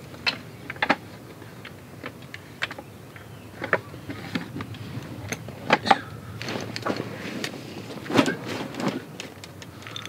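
Wooden slats of a folding camp table clacking and knocking as it is unfolded and set up: a string of separate sharp knocks, with rustling and shuffling between them in the middle.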